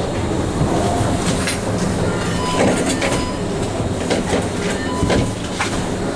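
Doppelmayr D-Line detachable gondola station machinery running: cabins move through the terminal with a steady mechanical rumble and irregular metallic clacks and knocks from the carriages on the station rail and drive wheels.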